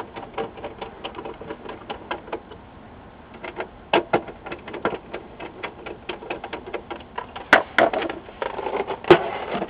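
Quick irregular clicking and ticking of a hand screwdriver driving the screws that fasten the stand to the plastic back of a Samsung 204B LCD monitor, with a few louder knocks near the end as the stand is handled.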